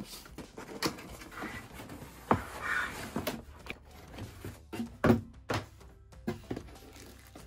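A cardboard product box being opened and unpacked by hand: flaps and packing scraping and rustling, with a series of knocks and thunks, the loudest about five seconds in.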